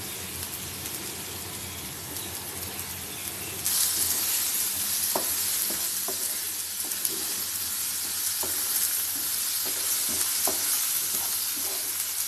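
Onion, tomato and spice masala sizzling in oil in a non-stick pan while a wooden spatula stirs it, being sautéed until the raw smell of the spices goes. The sizzle gets louder about four seconds in, and after that the spatula scrapes and taps the pan every second or so.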